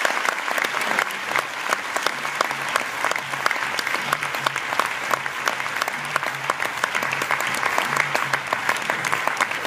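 A large audience applauding, many hands clapping steadily and densely.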